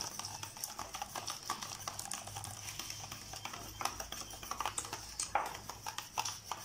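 Wire balloon whisk beating batter in a stainless steel bowl, its wires clicking and tapping against the bowl in a quick, irregular patter.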